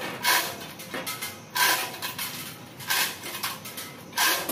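Manual chain block (3-ton chain hoist) clinking and rattling in four regular bursts about every 1.3 seconds as its chain is pulled to hoist a load, with steel chain links ringing.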